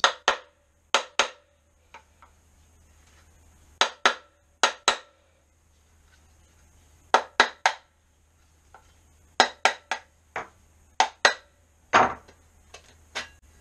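A hammer tapping the metal shroud of a Miele C3 vacuum cleaner's motor, to knock the press-fit shroud off. Sharp knocks come in quick twos and threes with pauses of a second or more between them.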